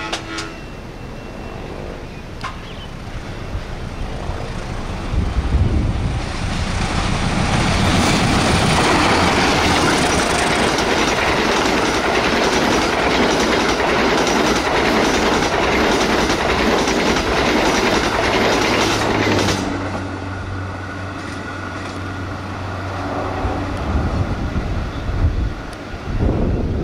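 Diesel-hauled passenger train passing close at speed, its wheels clattering over the rails as the coaches rush by. The noise builds over the first few seconds and is loudest for about thirteen seconds, then cuts off abruptly to a quieter steady low hum.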